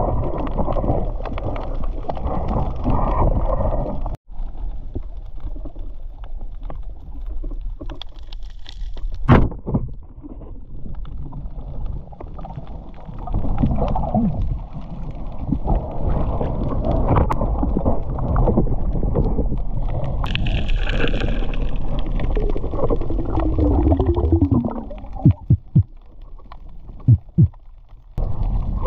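Muffled water sloshing and gurgling with a heavy low rumble, as heard by a camera at sea. It breaks off abruptly about four seconds in, then resumes, and a few sharp knocks come near the end.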